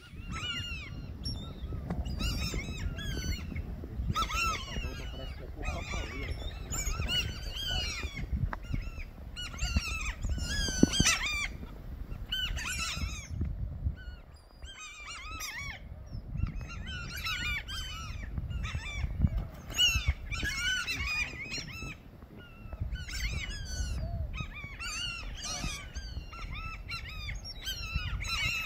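A large feeding flock of terns (the river 'gaivotas') calling over and over in many short, harsh, overlapping cries as they circle over fish at the water's surface. A low rumble of wind on the microphone runs underneath.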